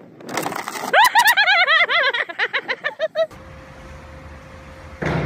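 A brief noisy clatter, then a young person's high-pitched shriek lasting about two seconds, its pitch wavering rapidly up and down. After that comes the steady hum of a large indoor room with a faint steady tone, and a sudden loud noise near the end.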